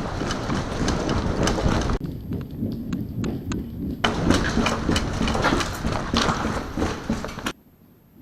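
A dense clatter of sharp clicks and knocks over rustling noise, broken by abrupt cuts, then dropping to a low level about seven and a half seconds in.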